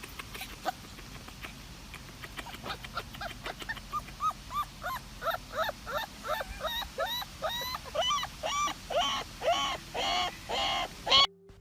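Repeated short animal calls, each rising and falling in pitch, coming faster and louder over several seconds, then cutting off suddenly near the end.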